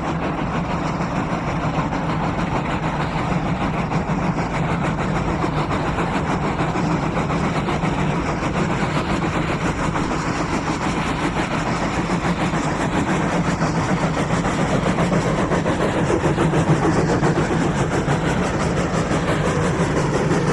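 Two 3 ft 6 in narrow-gauge steam locomotives, a South Australian Railways T class and a 400 class Garratt, working hard together on a loaded ore train up a 1 in 60 grade: fast, overlapping exhaust beats, growing a little louder toward the end.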